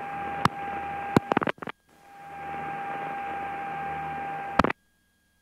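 Cockpit intercom and radio audio feed: a steady hiss with a constant high tone, broken by sharp clicks about half a second and a second in and a brief dropout. The hiss and tone then fade back in, and a click near the end cuts everything to silence.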